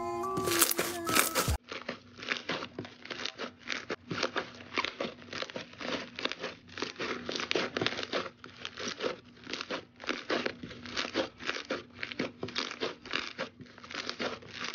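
Slime being squeezed and kneaded by hand: a dense run of crackling, crunchy pops, several a second. Music plays over it for the first second and a half.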